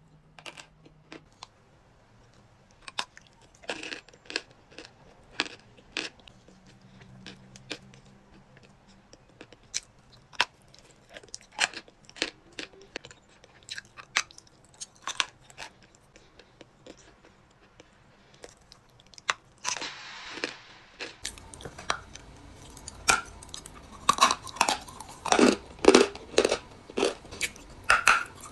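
Crisp crunches of dry chalky clay being bitten and chewed, a sharp crack every second or so, coming faster and louder in the last third.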